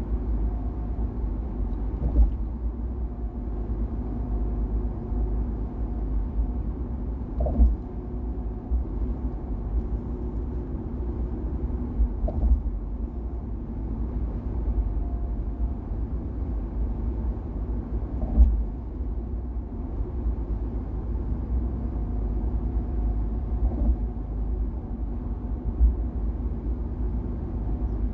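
Steady low road rumble of a car driving at speed, with a faint steady hum over it and a handful of short, sharper thumps from the road surface.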